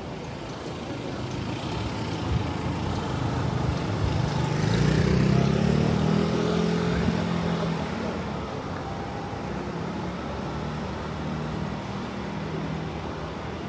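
A motor vehicle passing close by on a city street: its engine grows louder to a peak about five seconds in, then fades away over steady traffic noise.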